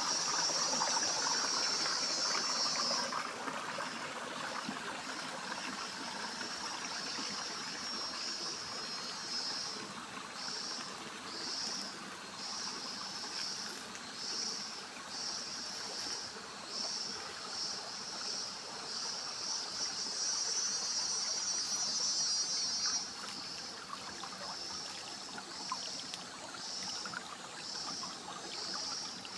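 A forest stream trickling and rushing, under a cicada's high, shrill buzz. The buzz is unbroken at first and again for a few seconds later on, and in between it pulses on and off about once a second.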